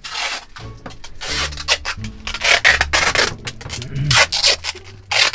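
Packing tape being pulled off the roll in several long, loud rips, one after another.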